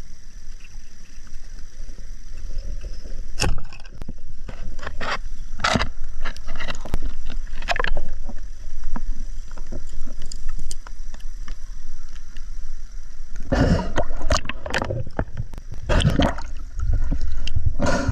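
Water splashing and sloshing in irregular bursts over a steady low rumble.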